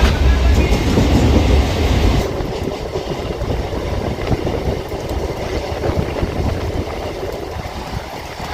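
Electric suburban local train running along the track, a steady rumble of wheels on rails. The low rumble is heaviest for about the first two seconds, then eases to a lower steady level.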